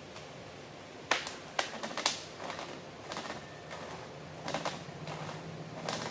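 Wood cracking in a run of sharp snaps. The three loudest come about half a second apart starting about a second in, and softer ones follow: the half-sawn limb is starting to break under its own weight.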